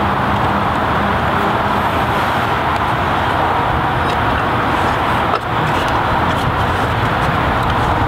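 Steady loud rushing background noise, with a faint click about five and a half seconds in.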